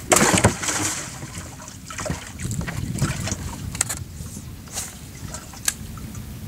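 Wind buffeting the microphone in a steady low rumble, with a short rush of noise at the start and a few sharp clicks.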